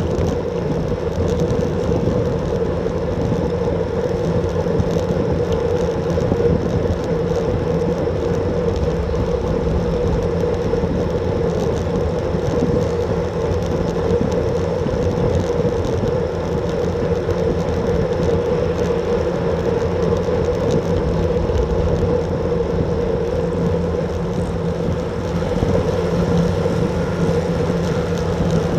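Steady wind rush and tyre-on-road noise on a bike-mounted action camera's microphone while a road bike is ridden at speed.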